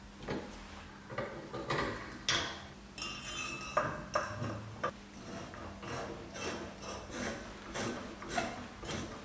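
Metal parts of a 1960s Vespa rear shock absorber being handled and fitted by hand with tools: irregular clicks, scrapes and rubs, with a few short ringing metal clinks about three to four seconds in.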